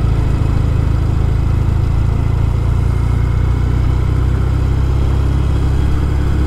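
Norton Commando's parallel-twin engine running at a steady pitch while under way, with no revving or gear changes, over a constant rush of noise.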